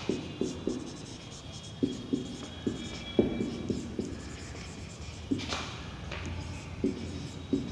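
Marker pen writing on a whiteboard: short, irregular strokes and taps as words are written out.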